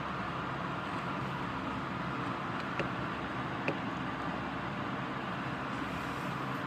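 Steady rainfall, an even hiss with no thunder, broken by two faint ticks in the middle.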